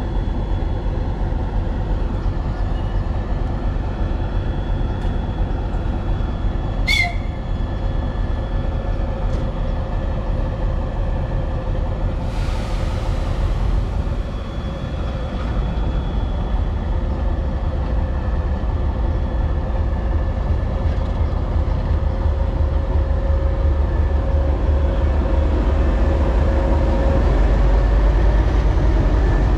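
Diesel engine of a 2TE10U locomotive running, a steady low rumble with a steady whine, with a short burst of air hiss about twelve seconds in and the running getting louder near the end.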